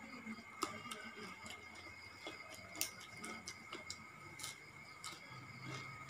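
Faint, irregular crisp clicks and crunches of a person chewing a mouthful of shredded green papaya salad with the mouth closed. A faint steady high tone runs underneath.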